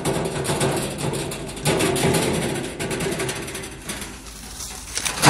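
Empty steel-tray wheelbarrow rattling as it is pushed over dry pine straw, its wheel and the man's steps crunching through the needles. It grows louder as it comes close near the end.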